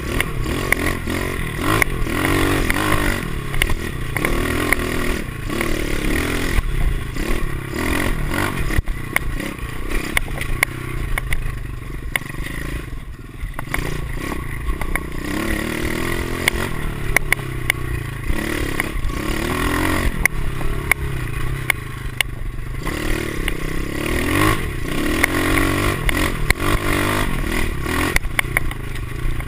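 Single-cylinder four-stroke pit bike engine revving up and falling back again and again as it is ridden hard over a bumpy dirt trail, with the bike's chassis rattling and clattering over the bumps and a steady rush of wind noise.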